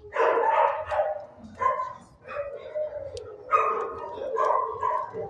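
Dogs barking in shelter kennels, about five barks spread through the stretch.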